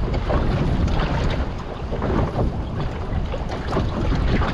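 Strong gusty wind buffeting the microphone over the rush of choppy sea and breaking swell around a small boat.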